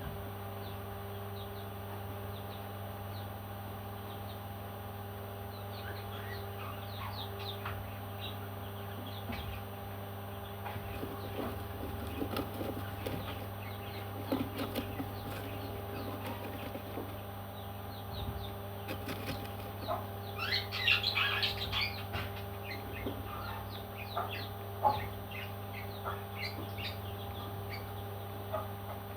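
Baby parrots chirping in short, scattered calls, with a busier cluster of chirps about two-thirds of the way through, over a steady hum.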